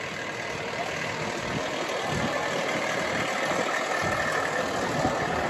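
Fire engine's motor running as the truck rolls slowly past, a steady engine sound that grows slightly louder as it draws near.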